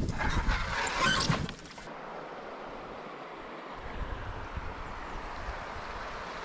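Canoe coming ashore: wind buffeting the microphone with a few knocks of paddle and hull for about the first second and a half. It cuts off suddenly to a steady, even rush of flowing river water.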